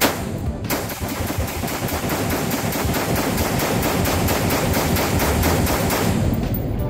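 Palmetto State Armory AR-15 rifle fired in rapid semi-automatic fire in an indoor range: a shot, a second one under a second later, then a fast, even string of shots that stops shortly before the end.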